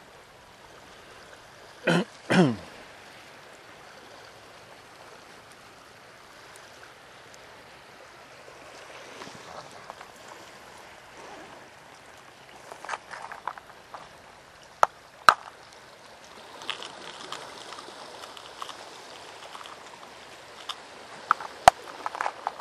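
A faint steady wash of calm sea water, with scattered sharp clicks and knocks. Two loud sweeping noises, falling in pitch, come about two seconds in.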